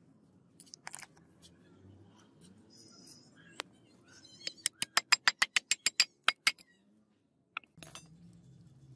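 Rapid series of about a dozen sharp hammer taps on a steel punch set in a hole through a wooden handle scale, about six a second for two seconds in the middle. Lighter clicks and handling knocks come before it.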